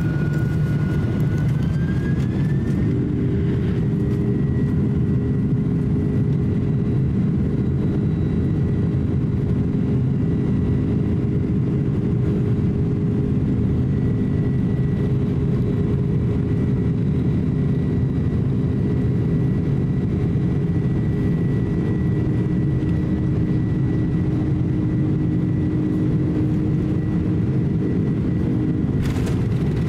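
Boeing 767-300 on its takeoff roll, heard from inside the cabin beside the wing: the twin turbofan engines spool up with a rising whine over the first few seconds, then run at takeoff thrust with a steady whine over a heavy rumble.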